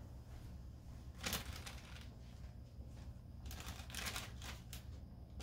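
Parchment paper crinkling as a hand handles it: a short sharp rustle about a second in, then a longer run of rustling a couple of seconds later, over a steady low hum.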